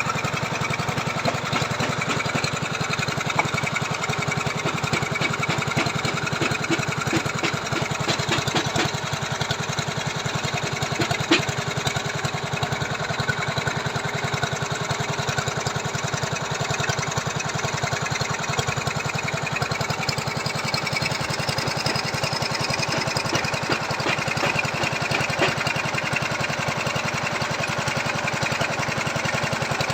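Small petrol engine of a motorised foundation drill (earth auger) running steadily, with one sharp knock about eleven seconds in.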